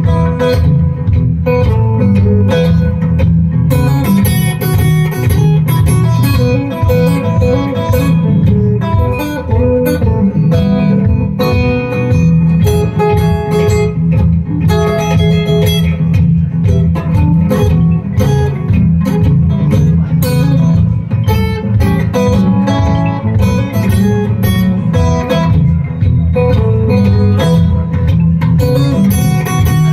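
Steel-string acoustic guitar playing an instrumental blues passage, picked and strummed steadily, with harmonica from a neck rack played over it.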